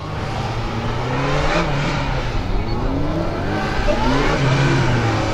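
Honda CB1300P police motorcycle engine revving up and falling back again and again as it is ridden through a tight cone slalom course.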